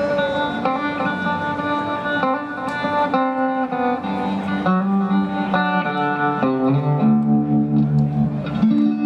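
Live band music led by an electric guitar picking a melody of single notes over held lower notes; the notes slow into long held tones near the end.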